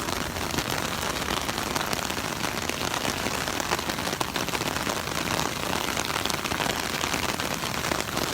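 Rain falling steadily on an umbrella overhead: a dense, even hiss of many small drop hits.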